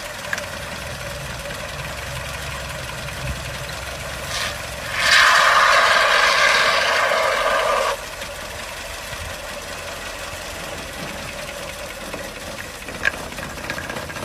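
Aerosol can of foam spraying onto an engine's valve cover: a loud steady hiss for about three seconds that cuts off suddenly, over a steady mechanical hum, with a single sharp click near the end.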